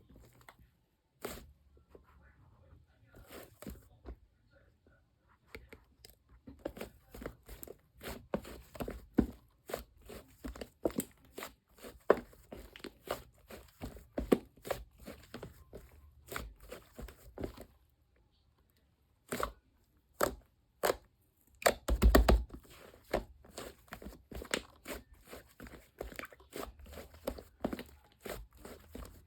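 Close-up crunching, crackling and crinkling, many short irregular crackles, with a louder cluster about three-quarters of the way through.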